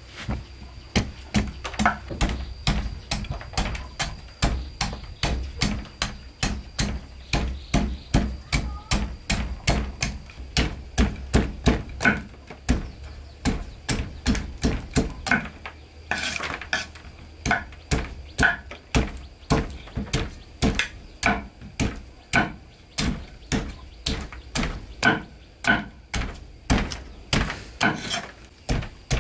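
Long kitchen knife chopping the tough skin off a large hard root tuber on a wooden cutting board, one sharp chop about every half second throughout.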